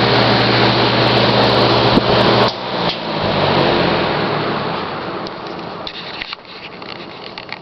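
Early-1950s Lasko two-speed 20-inch all-steel box fan running on high with a steady motor hum and rush of air. A click comes about two seconds in, and the motor cuts out just after. The blades then coast down, the hum dropping in pitch and the air noise slowly fading.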